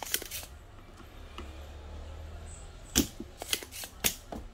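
Scattered sharp clicks and knocks of desoldering tools on a circuit board: one just after the start, then a cluster of several about three to four seconds in, the first of them the loudest. They come from working a relay loose from an amplifier board with a soldering iron and a spring-loaded solder sucker.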